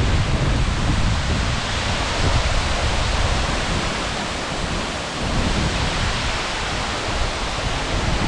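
Steady rushing of a waterfall's falling water, a dense even noise with a deep, fluttering rumble underneath.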